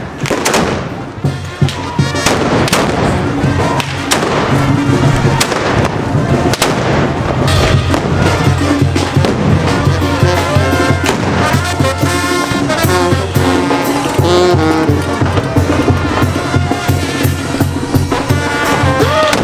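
A brass band plays with a steady low beat, while a run of sharp, loud bangs cracks over it, thickest in the first few seconds.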